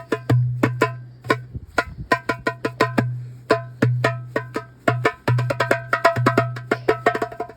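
Darbuka (goblet drum) played solo: deep, ringing bass strokes under sharp, bright rim strikes in a quick rhythm. The strokes crowd into fast rolls over the last couple of seconds.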